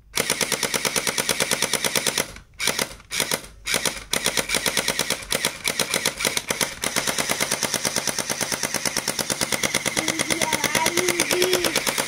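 Electric gel-bead blaster toy machine gun running on full-auto: a fast, even mechanical clatter of its motor-driven firing mechanism. It fires in a few short bursts with brief gaps about two to four seconds in, then in one long continuous burst.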